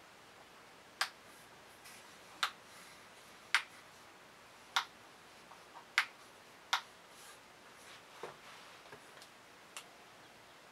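A switch on a steampunk lamp clicking, pressed about six times at roughly one-second intervals, then a few fainter clicks near the end, as the lamp's RGB lights are stepped through their colours.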